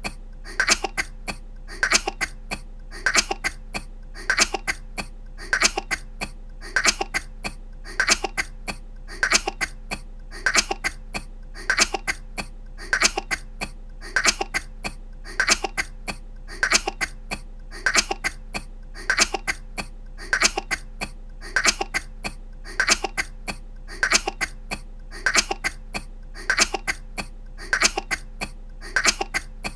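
A woman's short coughs, looped: a quick burst of coughs repeats evenly a little more than once a second, over a faint steady hum.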